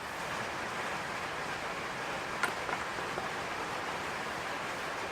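Steady background hiss, with one faint click about two and a half seconds in and a couple of softer ticks just after.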